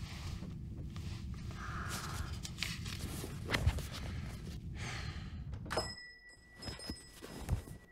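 Steady low room hum with a few soft rustles and clicks. About six seconds in the hum drops away and a thin, high, bell-like ringing tone sets in and holds.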